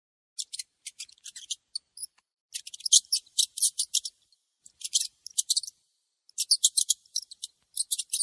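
Mouse squeaking: rapid runs of short, very high-pitched squeaks coming in bursts of about a second, about five bursts with short pauses between.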